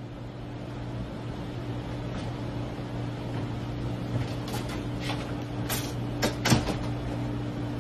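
Steady low hum of a ship's ventilation and machinery, with footsteps and a few sharp knocks as a person walks up and handles things; the loudest knock comes about six and a half seconds in.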